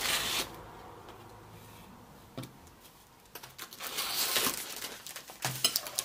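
Rustling and crinkling of a box of baking wafer sheets and its wrapper being handled as the sheets are taken out. It comes in a few short bursts with quieter gaps between.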